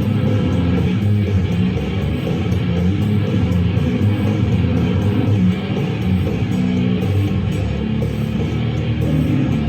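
Goregrind played live: loud, dense, unbroken metal built on distorted electric guitar.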